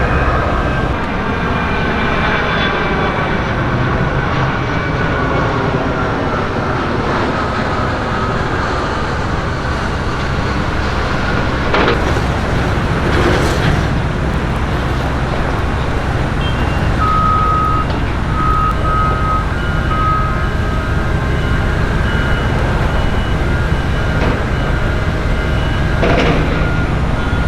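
Steady rumble of heavy vehicle engines. From a little past halfway, a truck's reversing beeper repeats a string of evenly spaced, same-pitched beeps, with a few brief knocks along the way.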